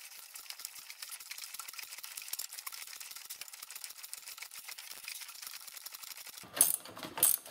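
Rapid fine ticking and creaking of a wrench slowly turning the nut of a pulley-puller tool under heavy load, drawing the press-fit pulley off the power steering pump shaft. About a second before the end come two louder knocks.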